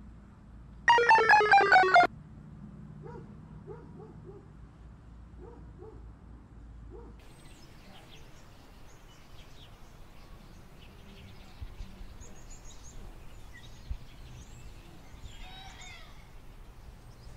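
A loud burst of rapid electronic ringtone-like notes lasting about a second, then faint outdoor background with small birds chirping.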